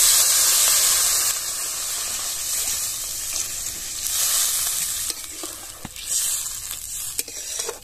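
Water poured into a hot karai of potato curry whose yogurt masala has been fried down dry, sizzling sharply as it hits the pan. The hiss is loudest at the start and swells again around four seconds in and near six. Near the end a metal spatula scrapes and taps the pan as the curry is stirred.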